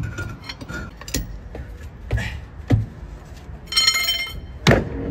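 Heavy steel truck wheel being worked off its hub studs: scattered metal knocks and thuds, a brief ringing metallic clink just before four seconds in, and the loudest thud near the end.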